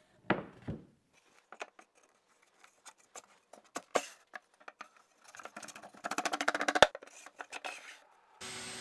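Baltic birch plywood dividers set down and slid into the dado grooves of a plywood cabinet: scattered wooden knocks and clicks, then a fast rattle of wood on wood about five seconds in that ends in a sharp knock. A steady machine noise cuts in just before the end.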